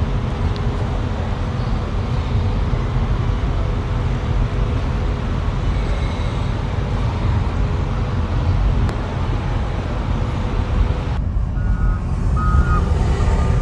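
Heavy road-construction trucks and machinery running with a steady low rumble. Near the end a backup alarm gives several short beeps.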